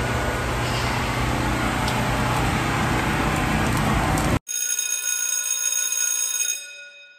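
Steady street noise with traffic. About four seconds in it cuts off abruptly to a sustained, bell-like ringing sound effect of many held tones, which fades out near the end.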